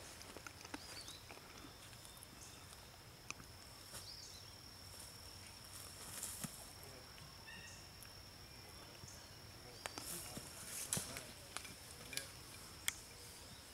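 Quiet outdoor field ambience: a steady high-pitched insect drone, with a few faint sharp clicks and a couple of short chirps.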